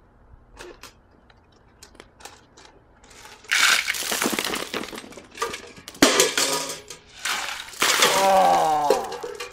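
Ice cubes and then ice water dumped from buckets over a person's head, clattering and splashing in two loud rushes, about three and a half and about eight seconds in, with a sharp knock between them. A shout rises over the second splash.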